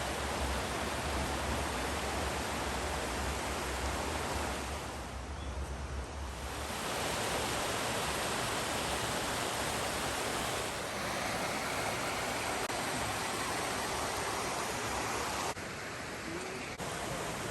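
Steady rushing of water in the Minoh river valley, either the stream or Minoh Falls, as an even hiss. It dips and shifts abruptly a few times, most sharply near the end.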